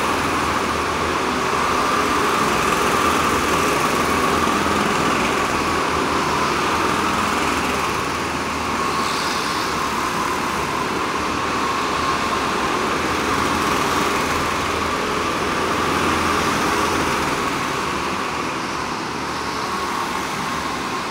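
Several go-karts' small engines running together around an indoor track hall, a steady overlapping drone that swells and eases a little as karts pass.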